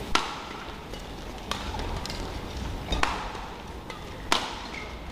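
Badminton rackets striking the shuttlecock in a doubles rally: four sharp hits about a second and a half apart.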